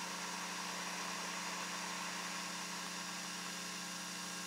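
Coffee machine brewing, running with a steady hum as coffee streams into a glass.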